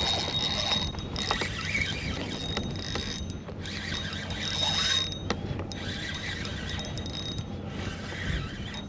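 Fishing reel being cranked in spells to wind in a hooked fish, with short pauses about three and five seconds in.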